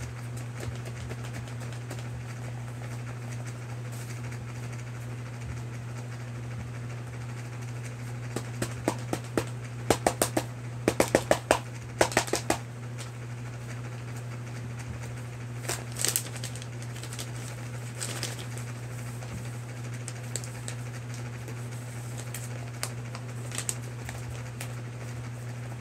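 Fingers tapping on a handheld touchscreen tablet: quick runs of taps about a third of the way in, then a few single taps, over a steady low hum.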